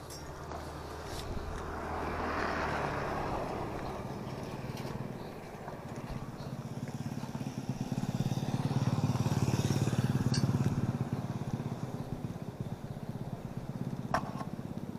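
A motor vehicle's engine, most likely a passing motorcycle, running as a low hum that grows louder to a peak about two-thirds of the way through and then fades, with a sharp click near the end.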